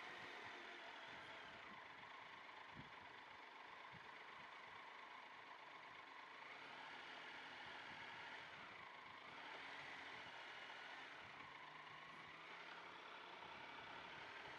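Faint motorcycle engine running steadily, with a thin whine that slowly shifts in pitch.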